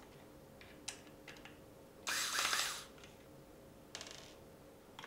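Cordless drill driver spinning for under a second about two seconds in, backing a mounting screw out of the side of a laptop hard drive, with a shorter spin near four seconds. Light clicks from handling the drive and screws come between.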